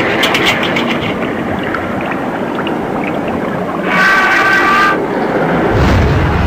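Ambient soundtrack: a dense, noisy wash with a few clicks at the start, a cluster of held tones for about a second around four seconds in, and a low rumble swelling near the end.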